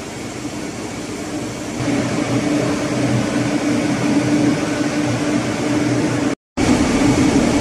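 Steady machinery hum with a low steady tone, getting louder about two seconds in and cutting out for an instant near the end.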